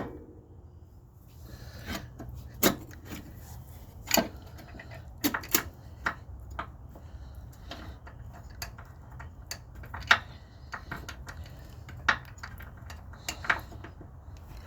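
Irregular metallic clinks and knocks of bolts and hand tools on the engine mount and its bracket as the bolts are lined up and fitted, with one sharp knock at the very start. A faint low hum runs underneath.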